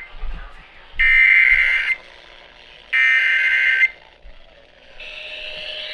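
Emergency Alert System SAME digital header: the end of one raspy data burst, then two more bursts of about a second each, a second apart, the coded signal that opens an alert activation. A hiss builds near the end.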